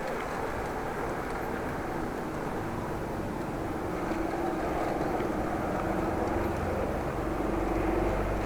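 Steady rush of wind and road noise on a bicycle ride with traffic about. A low hum comes in about halfway and grows louder toward the end.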